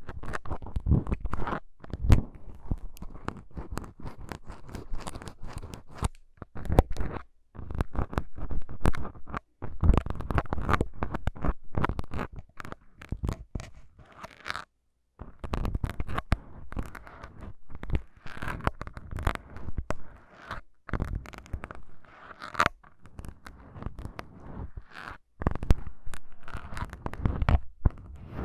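Plastic syringes with needles worked right against a recorder's foam microphone windscreens: close crackly scratching and sharp clicks in uneven bursts, with a few short pauses.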